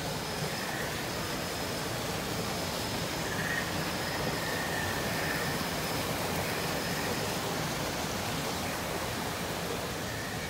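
Steady rush of water running over rocks in a small landscaped stream, with faint high, drawn-out whistles coming and going on top.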